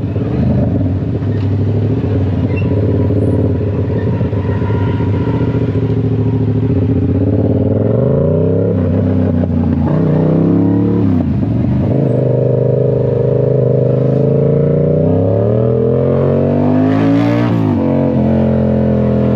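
A car engine under way, heard loud and close. It accelerates several times, each time rising in pitch and then dropping back as it shifts gear.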